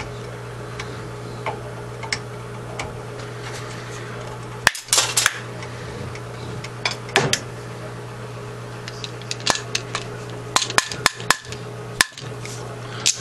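Sharp metallic clinks and taps from casting lead buckshot with an aluminum two-cavity mold, a few faint ones at first, a quick cluster about five seconds in and a run of them near the end, over a steady low hum.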